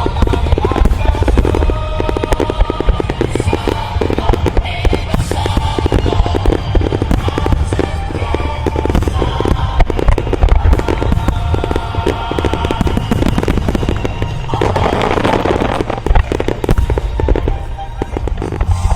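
A fireworks barrage firing in rapid succession, with dense bursts and deep booms, while music plays along with it.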